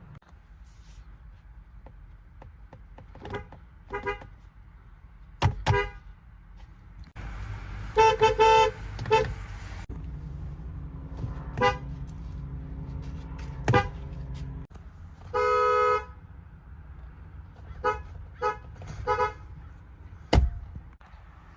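Car horns from a series of different cars honked in turn: about a dozen mostly short beeps, single and double, each horn a different pitch, with a longer loud blast about 8 seconds in and a steadier half-second honk about 15 seconds in. A sharp thump comes near the end.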